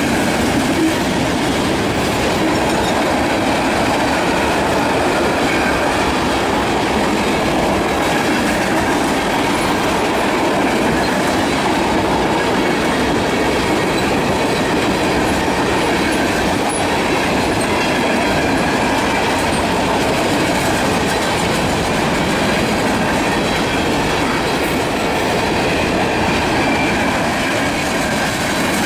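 A freight train's cars rolling steadily past, their wheels clattering along the rails in a loud, unbroken rumble.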